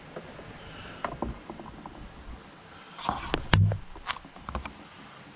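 Handling noise close to the microphone: a few light clicks and taps, then a quick cluster of sharp clicks with one louder knock about three and a half seconds in, over a low steady hiss.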